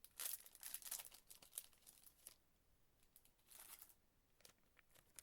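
Faint crinkling and rustling of soft plastic trading-card sleeves being handled, in a run of scratchy rustles over the first two seconds and a short burst again about three and a half seconds in.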